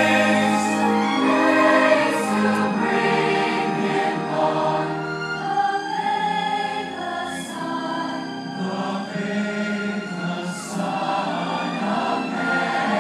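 Large choir singing a Christmas song in long held chords, with a few sibilant consonants sung together.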